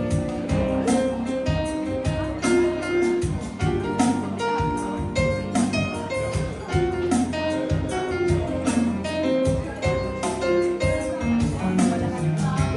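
Live jazz band playing an instrumental passage: electric keyboard over bass, with a steady percussive beat.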